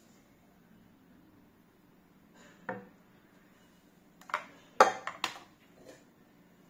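Plastic juice jugs and a digital kitchen scale being handled on a table: a few short knocks and clatters, one about two and a half seconds in and a quick cluster of louder ones around the fifth second.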